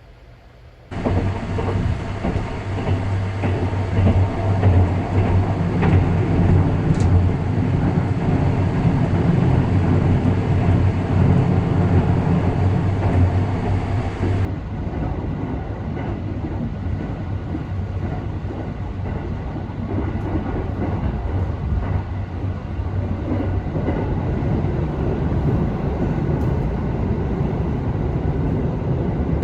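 285-series sleeper train running, a steady rumble of wheels and running gear with a low hum. The hum drops away about halfway through and a plainer rumble continues.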